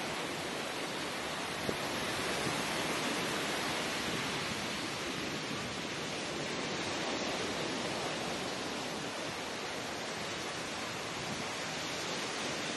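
Surf breaking and washing up a sandy beach: a steady hiss that swells and eases slightly, with one brief click about two seconds in.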